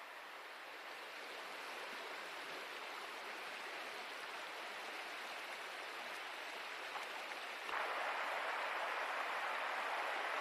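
Shallow stream running over a gravel bed, a steady hiss of water that steps up suddenly in loudness about eight seconds in.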